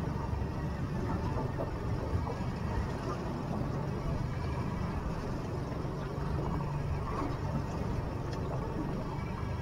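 Boat outboard motor running steadily at trolling speed, a constant low hum, with the wash of water and wind against the hull underneath.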